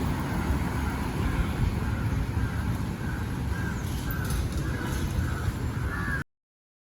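Outdoor street ambience: a heavy, steady low rumble of traffic and wind on the microphone, with a bird calling over and over, about twice a second, from about two seconds in. The sound cuts off abruptly to silence about six seconds in.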